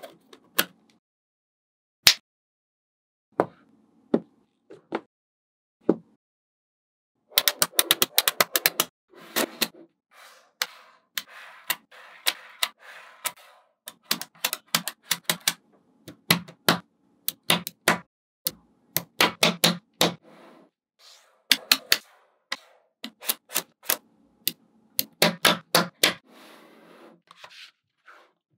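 Magnet balls clicking as they snap onto one another and onto a built wall of magnet balls: irregular sharp clicks, some in quick runs of rapid clicks, with softer rattling between them.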